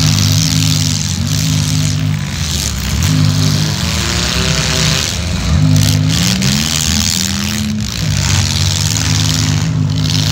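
Demolition derby car engines running loudly and revving, the pitch climbing several times as the drivers throttle up to push and hit.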